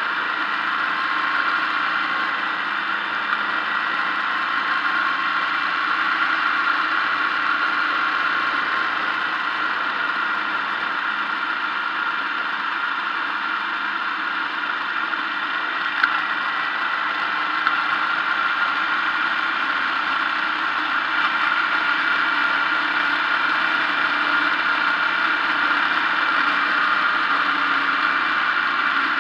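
A vehicle's engine running steadily under way, with a steady whine and road and wind noise, picked up by a camera mounted on the vehicle. A single sharp click about halfway through.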